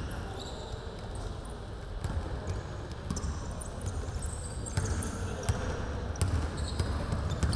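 Basketball dribbled on a hardwood gym floor, the bounces coming about every two-thirds of a second from about halfway through, with sneakers squeaking on the court.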